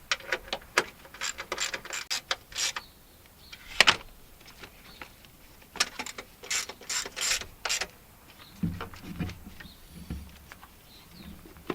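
Quarter-inch drive ratchet with a 10 mm socket clicking in quick runs as a bolt is turned, with a pause between the runs. A few low knocks near the end.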